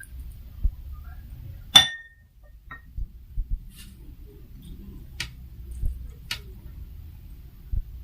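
Tableware clinking: one sharp, ringing clink a couple of seconds in, then a few faint clicks and soft bumps as the food is handled.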